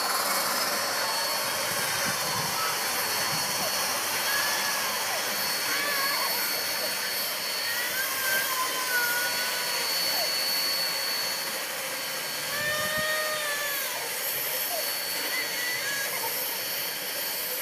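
Steam locomotive being turned on a powered roundhouse turntable: a steady loud hiss with a thin high whine through it, and short rising-and-falling squeals a dozen or so times as the turntable swings round.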